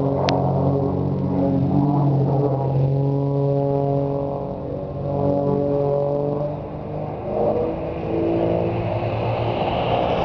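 Aerobatic plane's piston engine and propeller droning steadily as it flies a smoke-trailed loop. Its pitch shifts a little and its loudness dips twice midway. There is a brief sharp tick just after the start.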